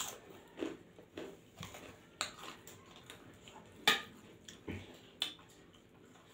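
Eating by hand from stainless steel plates: fingers mixing and scooping rice against the metal, with scattered short clicks and scrapes, the loudest about four seconds in.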